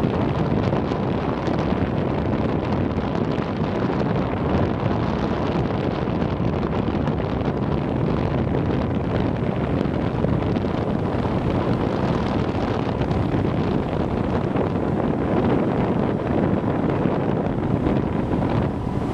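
Steady wind noise on the microphone of a moving motorbike, with the bike's engine running underneath.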